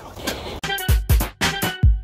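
Background music: a drum-machine beat with deep kick drums and sharp hits over held synth notes, starting about half a second in.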